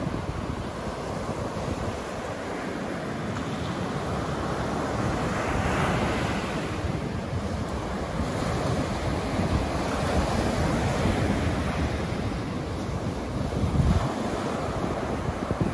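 Small waves breaking and washing up a sandy beach, the surf swelling and falling as each wave comes in. Wind rumbles on the microphone in gusts, strongest near the end.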